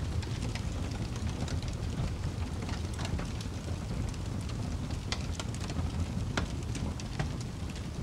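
Wood fire crackling, with irregular sharp pops from the burning logs over a steady low rumble.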